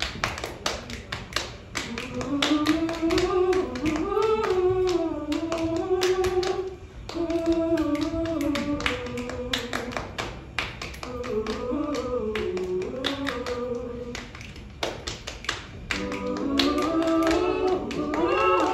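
Several women's voices singing a wordless a cappella harmony over a steady body-percussion rhythm of hand claps and pats on the legs. The singing drops out briefly about seven seconds in and again for a second or so near fifteen seconds while the claps and pats carry on, then the voices come back in.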